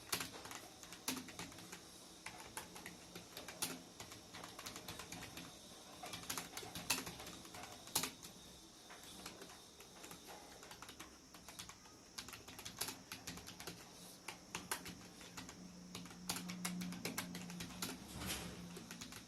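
Computer keyboard typing: a fast, irregular run of key clicks with occasional louder keystrokes, typical of a timed typing test.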